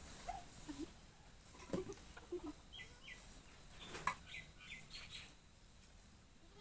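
Faint chickens in the background: a few low clucks, then a run of short high chirps from about three seconds in. Two brief knocks cut through, one near two seconds and one near four.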